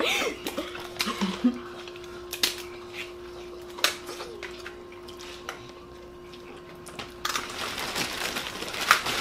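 Crab-leg shells cracking and snapping as they are picked apart by hand, with scattered clicks and taps of dishes. Near the end a plastic bag rustles. A faint steady hum sits underneath.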